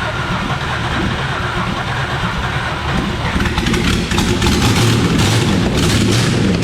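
Car engine running, getting louder about three seconds in, with a regular pulse about twice a second.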